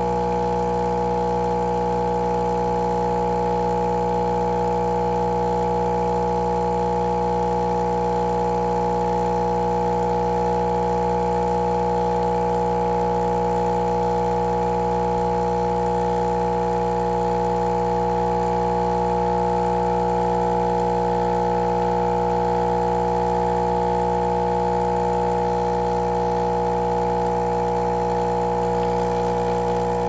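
Saeco Royal OTC super-automatic espresso machine brewing coffee in manual brew mode: a steady, unchanging hum from its pump as coffee dispenses into the glass.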